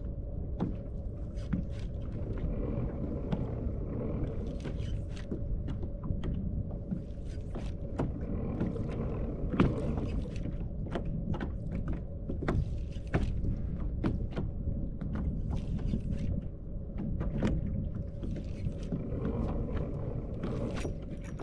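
Steady low rumble of wind and water around a fishing kayak, with a faint steady hum and many scattered sharp clicks and knocks from the boat and fishing gear.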